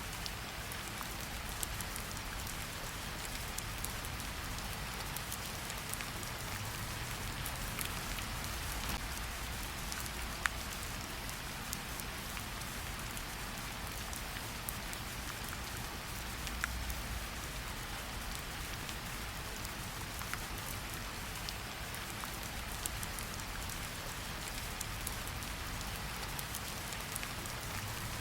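Steady rain falling on a forest, an even hiss with scattered individual drop ticks and a low rumble underneath.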